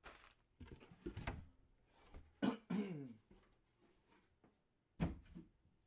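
A man clears his throat in the middle and coughs twice near the end, with low thuds of a cardboard box being handled in the first second or so.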